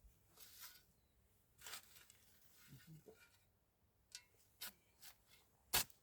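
Faint rustling and a few scattered clicks, with one sharp click near the end.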